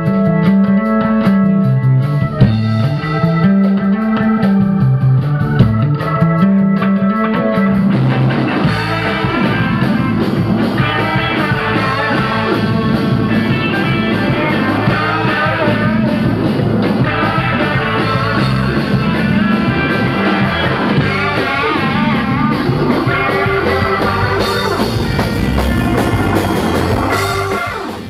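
Live instrumental rock band music led by a Hammond organ, with drums, bass and guitar. A repeating bass line is prominent in the first several seconds, and the music fades out near the end.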